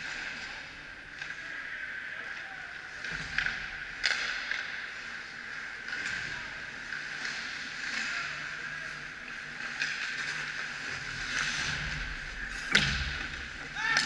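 Hockey skates scraping and swishing on rink ice, with a few sharp knocks of sticks and puck, the loudest near the end.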